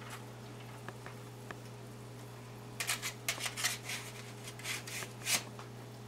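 Short crinkly rustling and a dozen or so sharp clicks, starting about three seconds in and lasting about two and a half seconds, from handling the pan of baked ribs, over a steady low hum.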